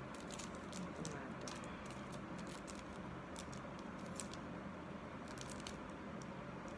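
Faint, scattered clicks and rustles of small plastic makeup packaging and brushes being handled, over a steady low hum.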